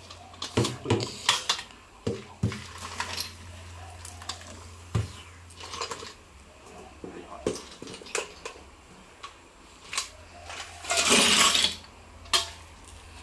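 Boiled gong gong (dog conch) shells and hot water poured from an enamel pot into a plastic sieve in a stainless steel sink: scattered clinks and knocks, then about eleven seconds in a loud, one-second rush of water and shells clattering into the sieve.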